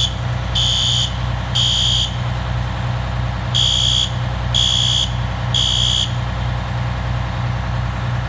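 Fire alarm horn strobes sounding the temporal-three evacuation pattern: three half-second blasts, a pause, and three more. Then they stop for good, as the alarm is shut off after a false alarm. A large engine idles steadily underneath.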